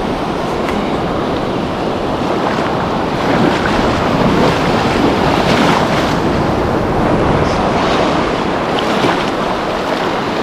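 Sea surf washing and splashing over a shallow reef, with wind buffeting the microphone; it swells a little midway.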